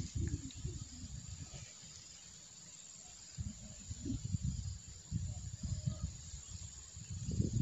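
Wind buffeting the microphone in uneven gusts, easing briefly about two seconds in, over a steady high-pitched insect chorus.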